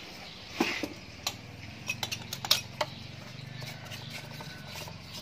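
Brass wire brush scrubbing carbon deposits off a Honda Tiger's aluminium cylinder head in a basin of fuel, with irregular scratchy strokes and light clicks of bristles and metal, over a low steady hum.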